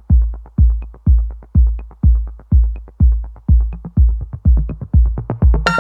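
Electronic intro music with a deep kick drum on a steady beat about twice a second; a bright synth chord comes in near the end.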